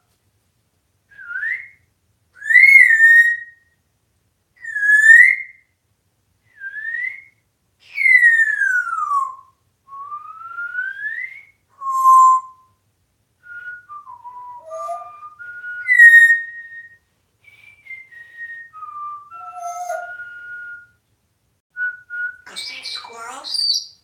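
African grey parrot whistling: a string of short, clear whistles, some rising, some falling, with one long slide down and back up, and a brief scratchy burst of chatter near the end.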